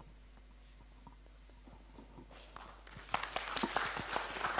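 Audience applauding: a moment of near silence, then scattered claps begin about two seconds in and thicken into steady applause.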